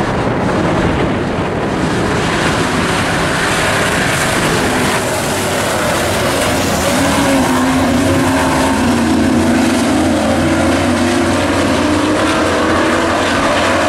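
A pack of four-cylinder mini stock dirt-track race trucks running flat out in a heat. Their engines make a continuous loud drone, with an engine note that rises and falls as the pack passes, strongest about halfway through.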